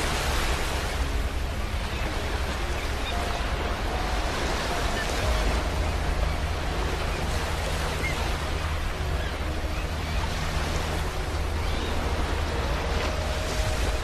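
Ocean waves washing onto a beach: a steady surf rush that swells a little louder near the middle.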